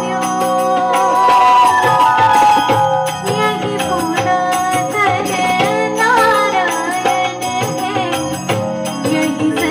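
A woman singing a Hindu devotional song (bhajan) into a microphone, with instruments accompanying her on steady held notes and light percussion.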